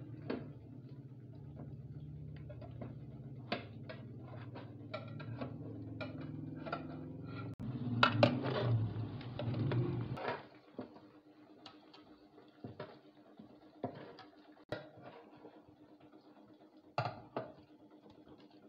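Metal utensils clinking and scraping against cooking pots, a scatter of sharp clicks with a louder, busier stretch of stirring about eight seconds in. A steady low hum sits under the first half and stops about ten seconds in.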